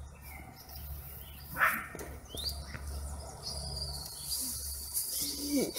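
Outdoor ambience of insects buzzing and birds chirping over a low rumble, with a steady high insect-like tone in the second half and a short sharp sound about a second and a half in.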